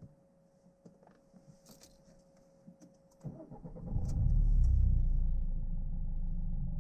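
Chevrolet Aveo started with the key: small key clicks and jangles, then a little over three seconds in the engine cranks and catches. It flares up briefly and settles to a steady idle.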